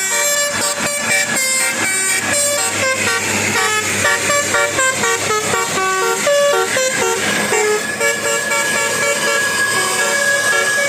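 Bus 'telolet basuri' musical air horn playing a fast tune of short notes that step up and down in pitch. From about seven seconds in it settles on one high note that is held steadily.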